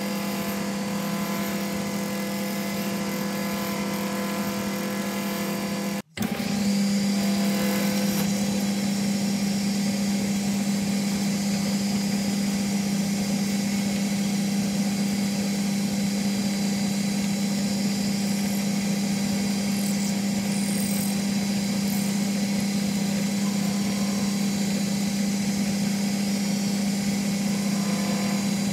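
Engineer's lathe running with its chuck spinning, a steady hum. The sound cuts out for an instant about six seconds in and comes back slightly louder.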